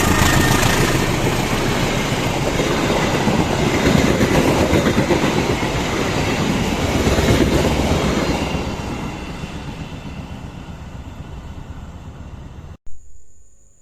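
Passing train rumbling and clattering along the rails at close range, then fading steadily as it moves away over the last few seconds. The tail of its horn dies out in the first second. The sound cuts off abruptly near the end.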